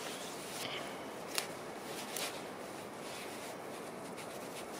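Knife whittling a small wooden peg: a few short, soft scraping strokes of the blade shaving the wood, with a light click about a second and a half in.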